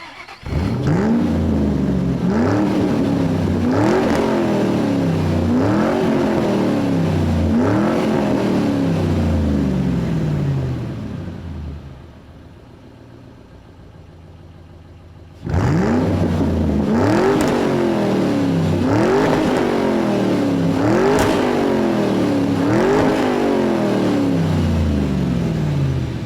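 Sports car engine revving repeatedly, each rev climbing quickly and falling away slowly. There are two runs of about five revs each, with a quieter stretch of a few seconds between them.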